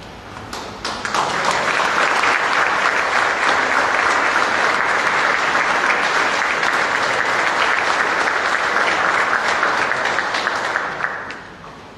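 Audience applauding. The applause swells up about a second in, holds steady, and dies away near the end.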